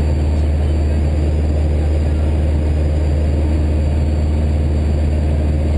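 Socata TB9 Tampico's four-cylinder Lycoming piston engine and propeller running steadily in cruise, heard from inside the cabin.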